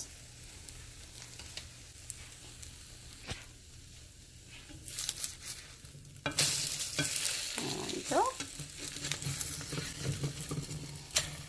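Egg-soaked French toast frying in butter in a nonstick pan, a steady sizzle with scattered small clicks of a spatula. About six seconds in the sizzle jumps louder and brighter as a slice is turned and its raw side meets the hot butter.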